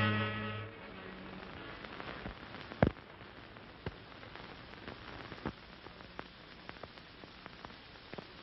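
Orchestral music dies away in the first second, leaving the hiss and crackle of an old optical film soundtrack, with scattered pops, the loudest about three seconds in.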